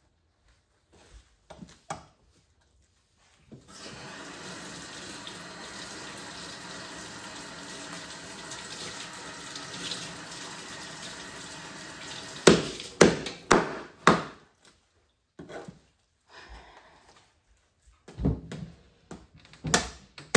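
Water running from a tap for about eight seconds, starting a few seconds in and stopping suddenly. It is followed by a quick run of four sharp knocks, then a few more knocks near the end.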